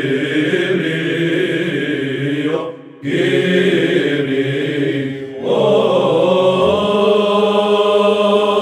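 Byzantine Orthodox chant sung by a male choir of chanters, long held melodic lines over a steady low sustained note. The singing breaks off briefly twice, about three seconds and five and a half seconds in, between phrases.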